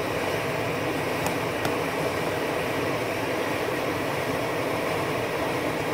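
MSR XGK EX liquid-fuel expedition stove burning at full with a steady, even noise from its pressurised burner, damped by a silencer cap fitted over the burner.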